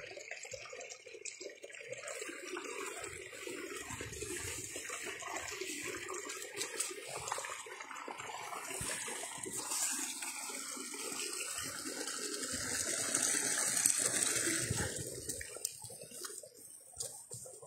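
Water flowing steadily, a continuous rushing sound that swells about three quarters of the way through and then fades.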